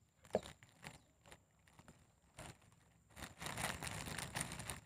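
Thin clear plastic bag crinkling as a spinning reel is handled inside it. A few faint light clicks come first, then steady crinkling starts about three seconds in.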